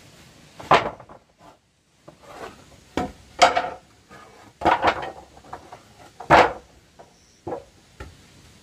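Wooden planks knocking and clattering as they are handled and set down: a string of sharp wooden knocks, some with a short hollow ring, with light scraping in between.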